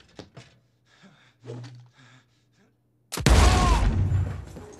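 A low steady hum and a few faint knocks. About three seconds in, a sudden loud blast of sound cuts in and keeps going: a television turned up far too loud.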